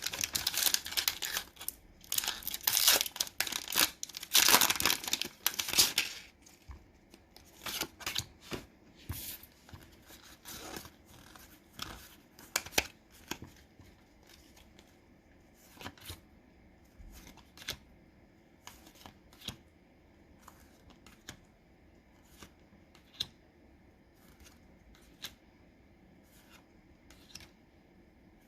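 Foil wrapper of a Pokémon booster pack crinkling and tearing open for about the first six seconds. Then come scattered short clicks and slides as the cards are handled one at a time.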